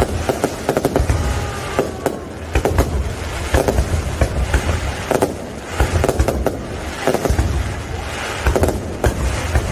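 Aerial fireworks display: a rapid run of bangs and crackles over a steady low rumble.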